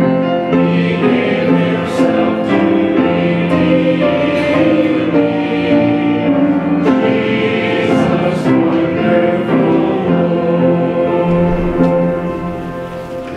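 A choir singing a slow passage in held chords, with the last chord dying away near the end.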